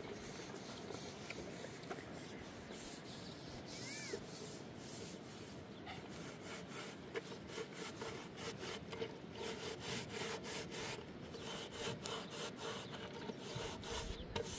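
A blackened metal cooking pot being scrubbed by hand: quick, irregular rubbing strokes that start about six seconds in, after a stretch of faint steady rustle.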